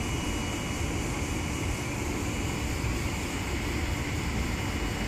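Steady mechanical drone of an automatic paint-spraying machine for cabinet doors running, with a thin, steady high whistle held throughout.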